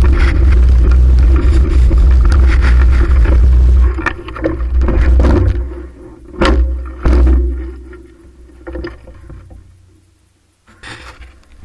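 Wind rumbling on the microphone with road noise from a fixed-gear bicycle being ridden, which dies away about four seconds in as the bike slows. A few sharp knocks follow, and the sound is nearly quiet near the end.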